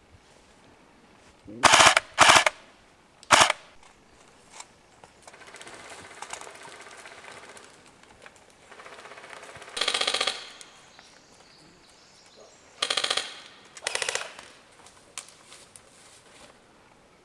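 Airsoft rifle firing six short full-auto bursts in rapid rattles, the loudest within the first few seconds. Fainter rattling of more fire comes in between.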